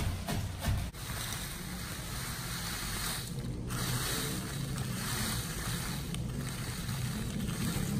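Crushed Oreo biscuit crumbs poured from a plastic bag into a ceramic bowl: a steady rustling hiss of crumbs and crinkling plastic, preceded by a couple of short knocks of a stone pestle in a mortar just at the start.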